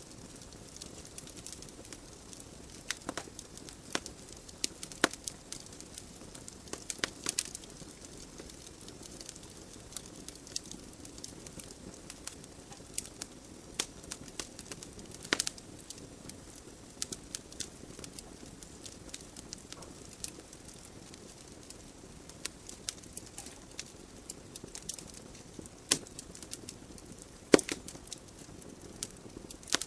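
Wood logs burning in a fireplace: a steady soft hiss of flames with irregular sharp crackles and pops, a few of them louder.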